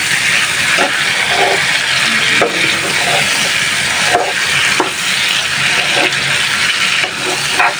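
Stinging catfish pieces and chopped tomato sizzling steadily in a frying pan while a spatula turns them. A few short scrapes and knocks of the spatula against the pan come through the sizzle.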